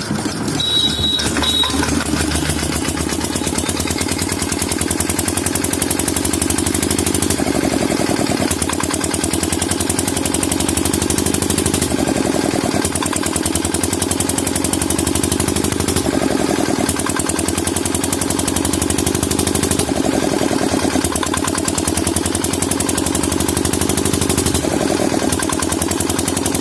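Diesel engine running with a rapid firing beat, its speed swelling and falling back about every four seconds: the engine is misfiring and not taking load.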